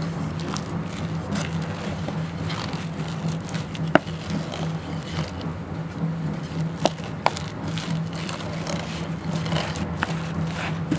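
Wooden spatula mashing and stirring boiled tapioca with grated coconut in a steel pot: soft squishing and scraping, with a few sharp knocks of the wood against the pot, about four seconds in and twice near seven seconds. A steady low hum runs underneath.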